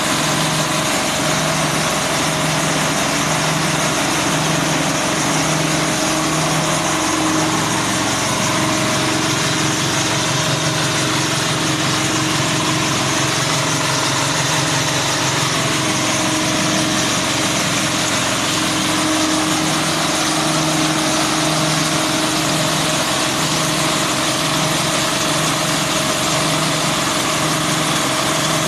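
Small single-cylinder diesel engine running a grass chopper, with a slow pulsing beat over the steady whirr of the spinning chopper. For about twelve seconds in the middle the engine note deepens and evens out, then the pulsing beat returns.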